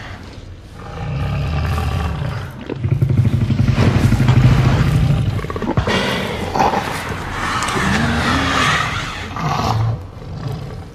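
Tyrannosaurus rex roar sound effect: a deep, rumbling growl that swells to its loudest about four seconds in, then gives way to higher, wavering calls and a short final cry near the end.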